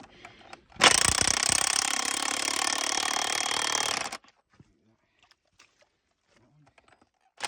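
Cordless impact wrench hammering in one burst of about three seconds, tightening down the fitting on the new section of water pipe; it stops abruptly, leaving a few faint clicks.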